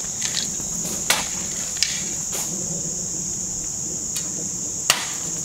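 A steady, high-pitched insect chorus, with a few sharp knocks, the loudest about five seconds in.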